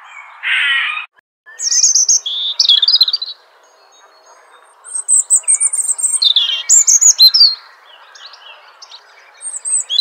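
A squirrel's harsh call, about half a second long, ending about a second in. Then, after a brief break, a robin sings a series of high, thin, warbling phrases with short pauses between them, over faint background noise.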